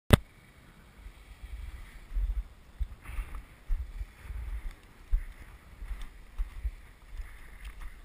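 Wind buffeting a skier's action-camera microphone in an uneven low rumble, over the faint hiss of skis sliding on packed snow. A sharp click sounds at the very start.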